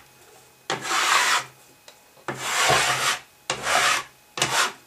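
A blue plastic furnace-control housing scraped across a wooden tabletop in four strokes, sweeping up drill shavings.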